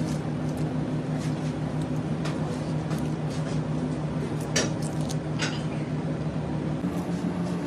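Steady low mechanical hum of kitchen equipment, with faint scattered clicks and crackles as raw prawn shells are pulled off by hand.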